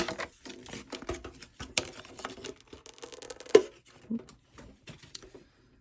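Plastic wrapping crinkling and crackling as it is handled and pulled off a boxed product, with a sharp crackle about three and a half seconds in; the handling thins out and stops near the end.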